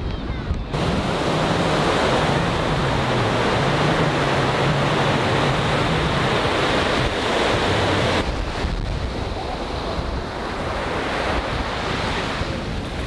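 Ocean surf breaking and washing up a sandy beach, with wind buffeting the microphone. The wash grows louder and brighter about a second in, then eases off past the middle.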